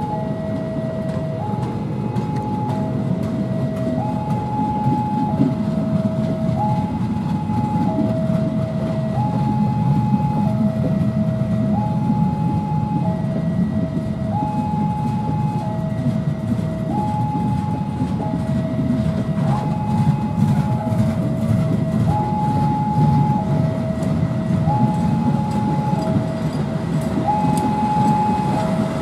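Level-crossing warning alarm sounding a steady two-tone signal, the two notes alternating about once a second. Under it is the rolling rumble and light wheel clatter of stainless-steel passenger coaches being slowly pushed back through the crossing in a shunting move.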